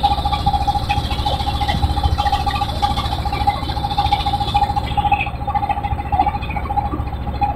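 Boat engine running steadily, with a rapid low pulse and a steady hum, over water splashing and rushing along the hull.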